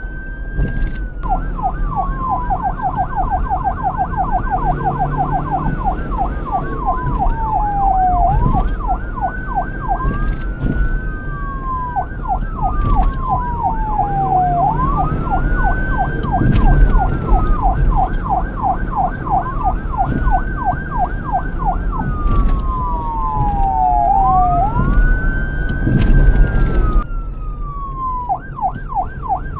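Police car siren cycling between its slow wail, a long rise and fall in pitch, and the rapid yelp, several quick up-and-down sweeps a second. The wail sweeps sometimes overlap. Near the end the siren cuts off for about a second, then resumes on yelp.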